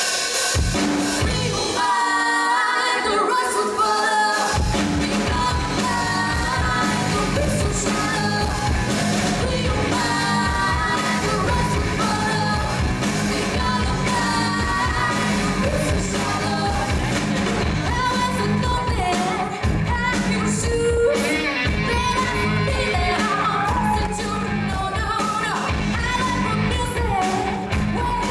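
Live band: a woman singing lead over electric guitar, bass guitar, drums and keyboard. The bass and drums come in fully about four seconds in.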